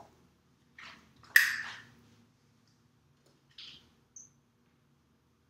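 A few short, soft scuffing or breathing sounds from a person moving at a whiteboard, the loudest about a second and a half in, and a brief faint high squeak near the end, over a faint steady low hum.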